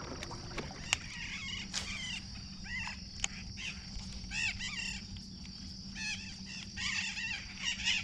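Birds calling in clusters of short, arching notes, repeated many times, over a steady high insect drone and the low, steady hum of the boat's electric trolling motor.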